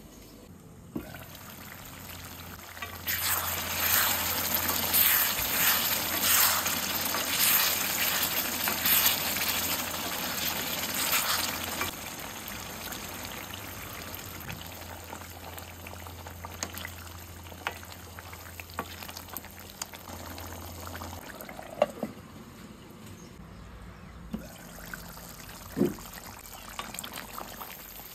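Water poured into a hot pan of chicken curry, splashing and sizzling loudly for several seconds. The curry then keeps sizzling more quietly, with a couple of sharp knocks from a wooden spoon on the pan.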